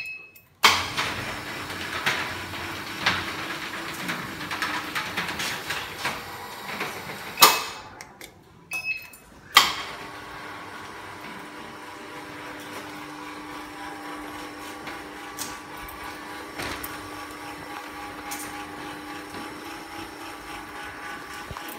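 Austdoor metal roller shutter: rattling and knocking for the first several seconds, then two sharp clunks about seven and nine and a half seconds in. After that its door motor runs with a steady hum of several tones as the shutter rolls up.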